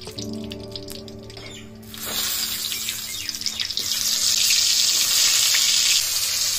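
Hot oil in an iron kadai sizzling as vegetables are dropped in, starting about two seconds in and growing louder past the middle as more pieces go into the oil.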